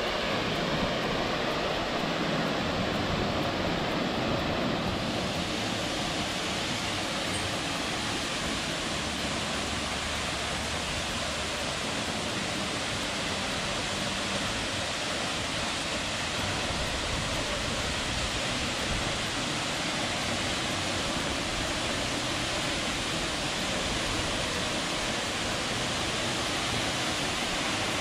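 Steady rushing noise of Tad Yuang's tall twin waterfall pouring into its plunge pool.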